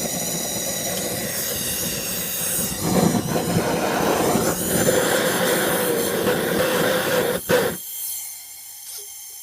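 Gas torch flame burning with a steady rushing hiss and high whistling tones, heating a seized engine pulley. It gets louder about three seconds in and cuts off suddenly near the end, leaving a faint hiss.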